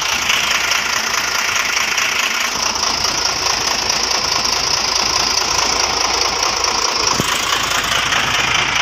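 Freshly overhauled diesel truck engine idling, heard close up from the engine bay, with a steady even clatter. A short click sounds about seven seconds in.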